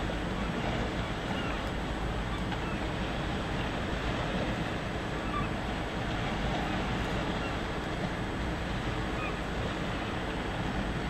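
Steady rush of wind and sea, with wind on the microphone.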